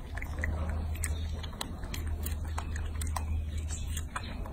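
Young macaque chewing strawberry: a run of short, irregular wet clicks and smacks, over a steady low hum.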